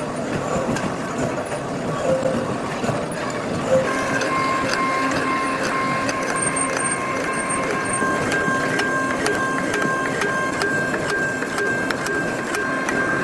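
Factory machinery running: a dense clatter with many sharp knocks, joined about four seconds in by steady high whining tones.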